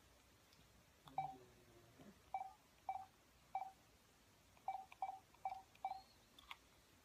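Short beeps from a smartphone's keypad as a phone number is tapped in, about eight of them at uneven intervals, all at much the same pitch.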